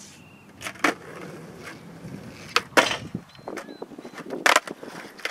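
Skateboard clacks and scrapes: sharp hits of the board and wheels on a picnic bench, grinding along the bench seat, and a loud hard landing about four and a half seconds in.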